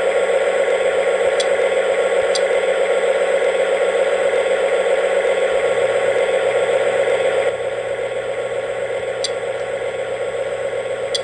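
Lionel Lion Chief Mystery Machine FT diesel locomotive's onboard sound system playing a steady diesel-engine idle rumble through its small speaker while the engine stands still. The sound drops a little in level about two-thirds of the way through, and a few faint ticks come over it.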